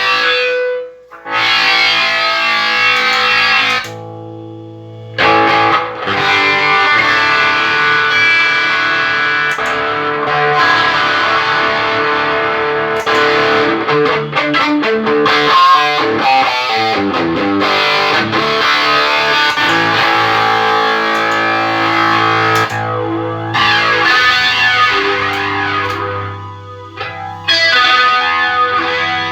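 Electric guitar played through a Line 6 POD HD500X multi-effects processor, with sustained distorted chords and notes and added effects. The unit is working again after repair. The playing breaks off briefly about a second in and goes quieter around four seconds in.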